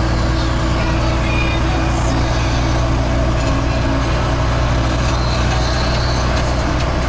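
Heavy vehicle's engine humming steadily with tyre and wind noise, heard inside the cab while cruising at motorway speed.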